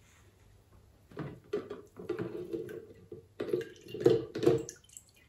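Alcohol running and dripping off a wire wash basket lifted out of a resin wash station's container, with irregular knocks of plastic and metal being handled. It starts about a second in and is loudest near the end.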